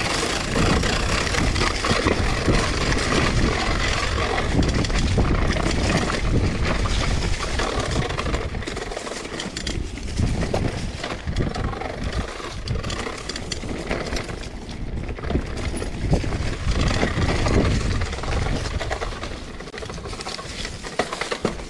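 Mountain bike descending a dirt singletrack, heard from a camera mounted on the bike or rider: steady wind rush buffeting the microphone over the noise of knobby tyres rolling through dirt and dry fallen leaves.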